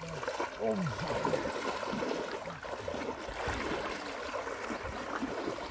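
River water sloshing and gurgling, with a steady wash of water noise and many short, bubbling pitch sweeps.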